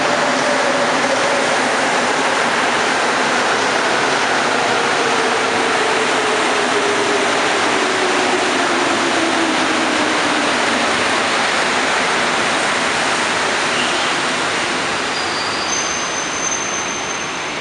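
Montreal Metro rubber-tyred train pulling in along the platform: a loud, steady rush of running noise with a whine that falls slowly in pitch as the train slows. The noise eases off near the end, with a few brief high-pitched tones.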